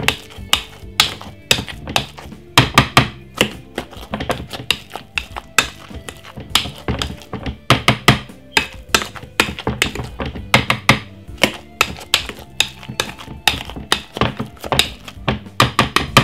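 Metal potato masher pounding boiled potatoes in a glass bowl: a rapid, irregular run of thunks and knocks, several a second, as it strikes through the mash.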